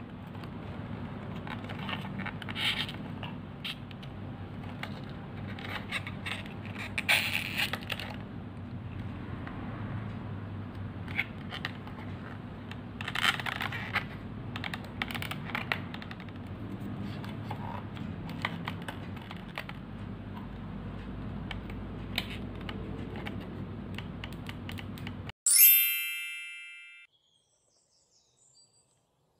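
Paper 3D puzzle pieces being handled and fitted together: scattered light rustles and clicks over a steady low hum. About 25 seconds in, the hum cuts off and a bright ringing chime sounds and fades over a second or so.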